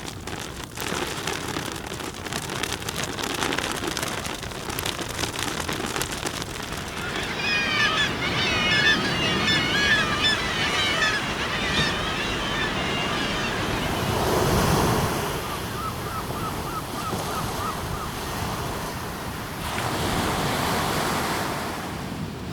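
Ocean surf and wind, a steady rushing noise that swells and ebbs, with a stretch of quick high twittering calls a third of the way in and a short row of repeated notes, about three a second, a little after the middle.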